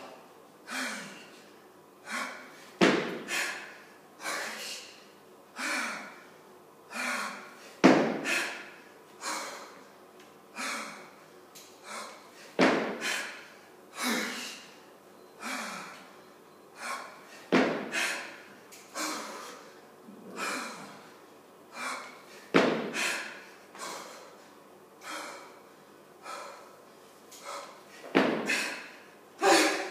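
Hard rhythmic breathing from a woman working through a set of kettlebell jerks, a sharp breath about once a second. A louder thud comes with each rep, about every five seconds, six times in all, at the 12-reps-a-minute pace.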